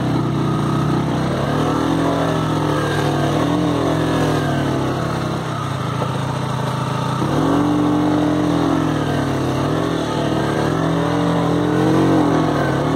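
KTM Duke motorcycle engine pulling up a rough, rocky dirt track, its revs rising and falling several times as the throttle is worked over the ruts and stones.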